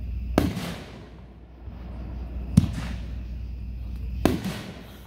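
Consumer aerial firework cake (the 10-shot White Knight) firing shells: three sharp booms about two seconds apart, each followed by a short echo.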